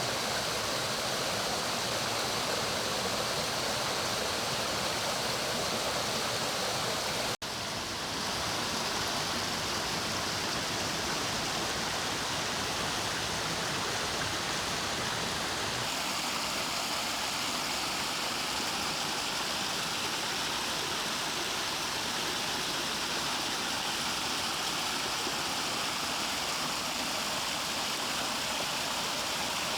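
Mountain stream water flowing steadily. It cuts out for an instant about seven seconds in, and around sixteen seconds the tone changes, brighter and with less rumble.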